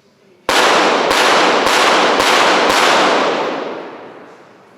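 .22 Short rapid-fire pistol firing a five-shot series, five shots about half a second apart, each ringing on with range reverberation that fades out over the following two seconds.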